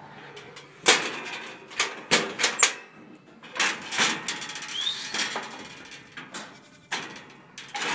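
Red steel goat head-catch stand being worked by hand: a run of sharp metal clanks and rattles as its gate bars and latch are moved, loudest about a second in and again around four seconds in.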